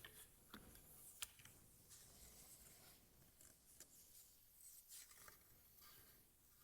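Near silence with faint scattered clicks and rustling from wooden parts being handled on a workbench, and one sharper click about a second in.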